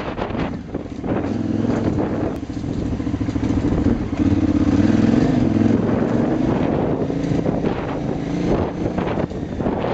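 Big KTM motorcycle's engine running under way, its pitch rising and falling as the throttle opens and closes, louder from about four seconds in.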